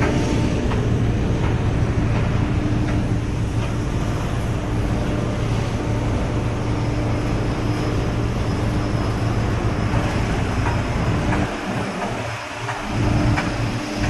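Heavy machinery running steadily with a constant low hum and a few faint knocks, dipping briefly in level near the end.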